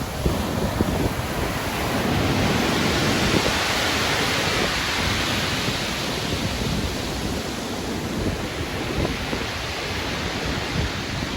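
Stormy sea: heavy ocean waves surging and washing over one another, with a churning low rumble underneath. One wave's wash swells to its loudest about three seconds in, then eases back.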